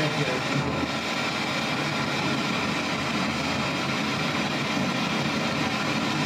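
Radio static from a radio scanning rapidly backwards through the FM band: a steady, flickering hiss with no clear voice.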